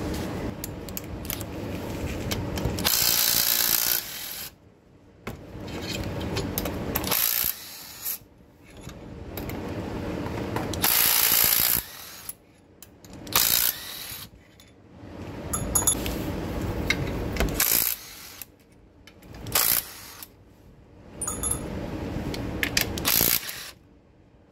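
Ratchet with a 14 mm socket on an extension loosening the bolts of the Toyota 2AR-FE engine's balance shaft assembly, in repeated spells of ratcheting with short pauses between.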